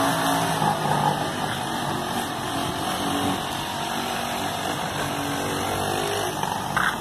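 Mini buggy's small engine running as it drives along a street, its pitch shifting up and down over road noise and easing off toward the end. A brief clack near the end.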